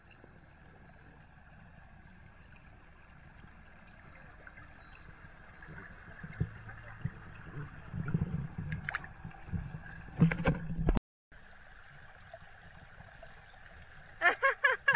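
Shallow river water sloshing and gurgling right at the camera, growing louder from about six seconds in, with a couple of sharp knocks around nine and ten seconds in. Near the end a person's voice comes in.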